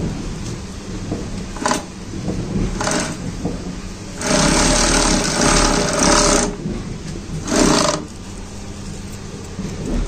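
Industrial bag sewing machine stitching a polypropylene mesh sack, running in spurts: two brief bursts, then a longer run of about two seconds, then one more short burst, over a steady low machine hum.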